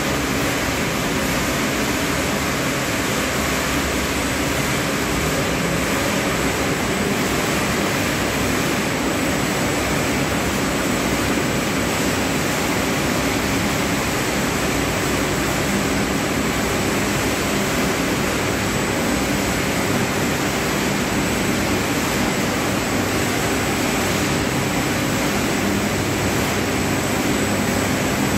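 Grain cleaning machine running: a steady rushing noise with a faint low hum underneath, unchanging throughout.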